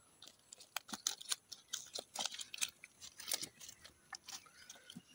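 Faint, scattered clicks and rustles as a nylon mesh keepnet holding live fish is handled and opened, with taps at irregular intervals.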